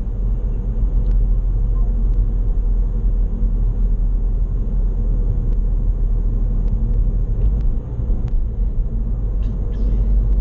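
Steady low rumble of road and engine noise heard from inside the cabin of a car driving at city-street speed.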